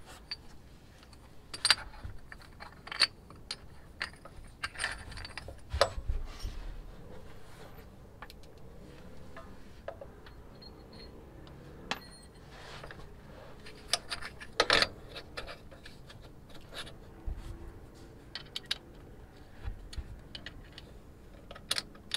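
Small metal mounting hardware clinking and rattling as a shock absorber's lower end is fitted onto its mount by hand: scattered sharp clinks, the loudest about two-thirds of the way in.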